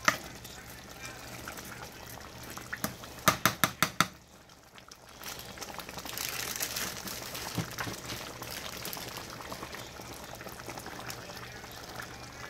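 Thick egusi soup bubbling as it simmers in a pot under a glass lid. A quick run of about six sharp clicks comes a little over three seconds in.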